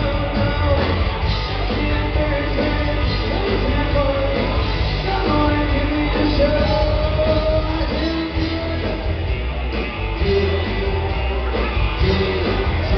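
Live rock-and-roll band music from a trio of hollow-body electric guitar, upright bass and drums, with a man singing over a heavy, steady bass and drum beat.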